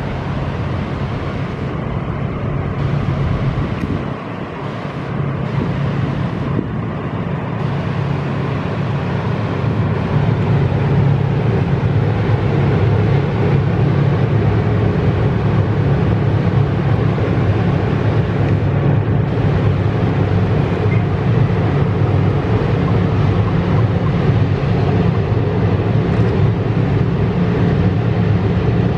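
GE BB36-7 diesel-electric locomotives working a loaded train, with a steady low engine drone that grows louder about ten seconds in as they approach.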